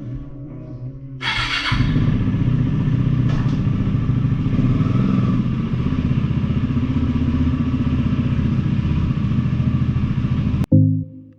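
Motorcycle engine, cold started, catching about a second and a half in and then running steadily at idle. It cuts off suddenly near the end.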